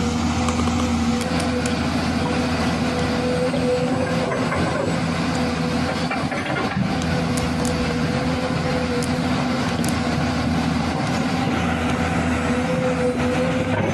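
A steady engine sound idling at an even pitch with no revving, and a few faint clicks over it.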